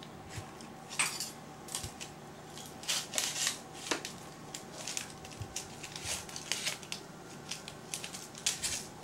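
Knife and fork clinking and scraping on a plate as food is cut, in irregular short clicks and scrapes.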